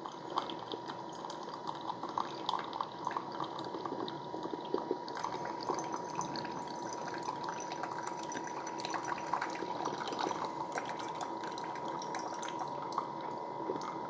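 Two Hamilton Beach The Scoop single-serve drip coffee makers brewing at once: coffee trickles and drips into ceramic mugs with many small splashes, over a steady faint tone.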